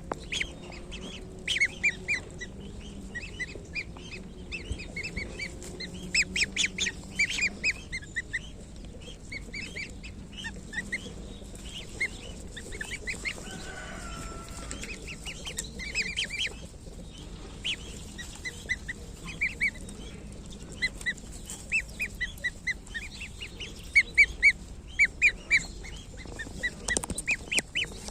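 A group of week-old goslings peeping: many short, high chirps coming in quick clusters, over a faint steady low hum.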